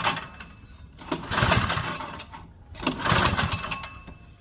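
Recoil rope pulls cranking a Craftsman snowblower's 123cc four-cycle overhead-valve engine: two full pulls about a second and three seconds in, each a short burst of rapid cranking clatter. The engine does not catch, and the recoil starter is skipping a little as it engages.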